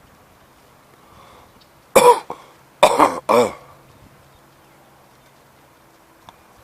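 Three loud coughs in quick succession, about two seconds in.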